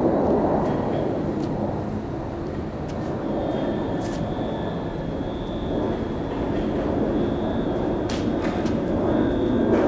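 Steady low rumble of outdoor urban background noise, with a faint thin high whine from about three seconds in.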